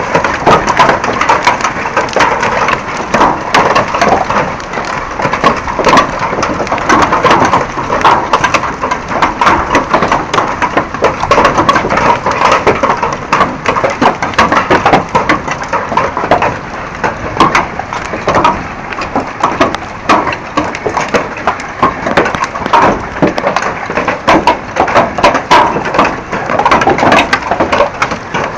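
Hailstorm: hailstones clattering down in a dense, continuous barrage of sharp impacts over a steady rush.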